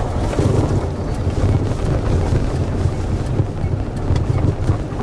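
A truck's engine running steadily on the move, a low rumble with road noise and wind noise over it.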